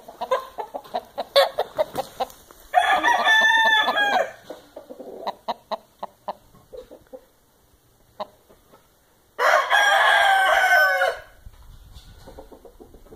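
Giro gamecock rooster giving short clucks, crowing, clucking again, and crowing a second time; each crow lasts under two seconds.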